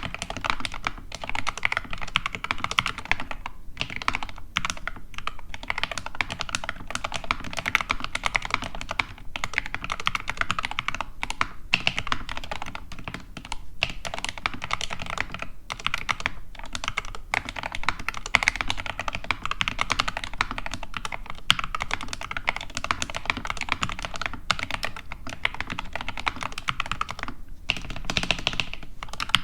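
Continuous fast typing on an SK61 mechanical keyboard with lubed Gateron Red linear switches and Everglide stabilizers: a dense run of keystroke clacks, broken by brief pauses a few times.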